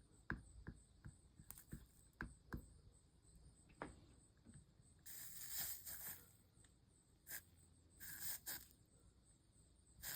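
Soldering iron working solder along the foiled seams of a stained-glass panel: faint scattered taps and clicks, then two short hisses of flux sizzling under the hot iron, about five and eight seconds in.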